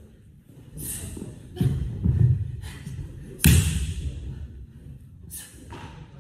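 A wushu changquan athlete's movements on a carpeted mat: thuds of stamps and landings, and a sharp smack about halfway through that is the loudest, each echoing in a large hall, with a few quick swishes between them.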